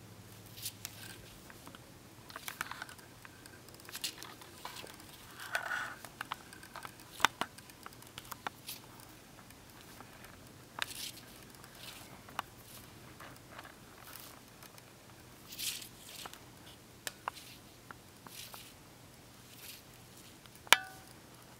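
Small handling sounds of hand beadwork: scattered light clicks and rustles as seed beads are picked from a plastic plate and thread is drawn through the beads on the cord. One sharper click with a brief ring near the end.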